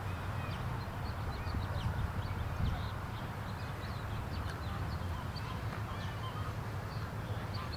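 Outdoor ambience: a steady low rumble, with many short, high bird chirps scattered throughout.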